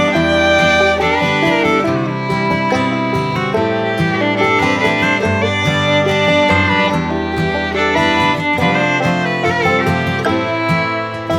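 Background music: fiddle with guitar accompaniment.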